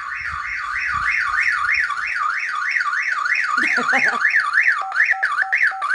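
Home security alarm siren going off, its tone warbling rapidly up and down at about four sweeps a second, then cutting off suddenly at the end. It was set off because it had not been disarmed.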